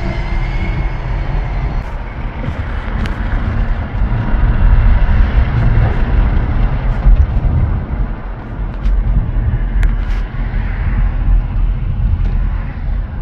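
Low rumble of road and wind noise inside a moving car. It grows louder in the middle as a semi-trailer truck passes close alongside.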